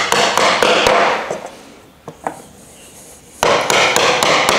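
A hammer knocking wooden plant-stand uprights down into their triangle connectors: a quick run of blows, a single knock, then a second quick run of blows starting about three and a half seconds in.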